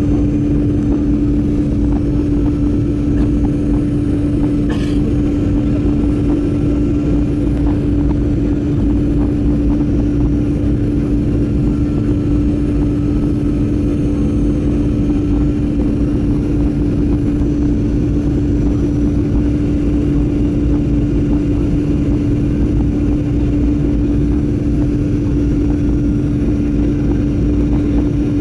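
Steady cabin noise of a Boeing 737-900ER airliner in flight: its CFM56 turbofan engines and the airflow give a low, even rush with a steady hum. About five seconds in, a brief click cuts through.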